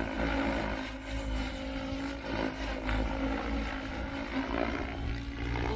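Goosky RS7 electric RC helicopter in flight: rotor blades and motor whirring with a steady tone.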